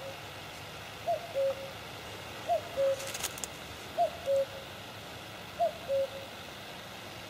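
A bird calling a two-note 'cu-coo', the second note lower and flat, four times about every one and a half seconds. A brief patter of faint clicks comes about three seconds in.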